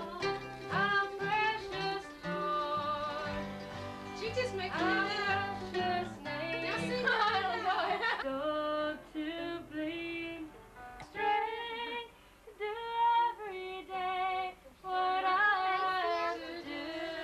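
Mandolin and acoustic guitar played together with a woman singing along. About eight seconds in the sound changes abruptly to a thinner recording of acoustic guitar with singing.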